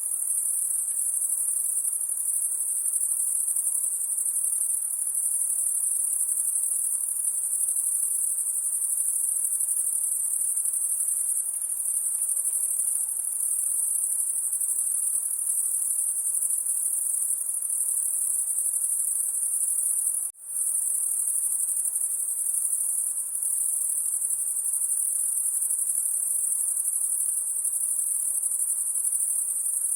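A continuous, high-pitched chorus of night insects, steady throughout, cutting out for a split second about two-thirds of the way through.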